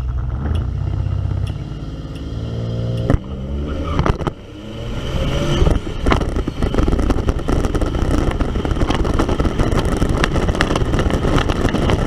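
Drag-strip run audio from vehicle cameras, cut between views. First a car engine running with slowly rising pitch, then a dense, steady rush of engine, tyre and wind noise that builds as a car runs down the track.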